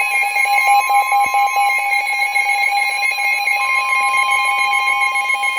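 Emergency Alert System attention signal: a loud, steady electronic alarm of several held pitches, with a quickly stepping warble of tones laid over it.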